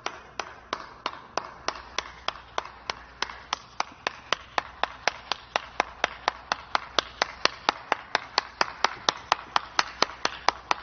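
One person's hands clapping in a slow clap: single sharp claps, about three a second at first, that steadily speed up to about five a second and grow louder.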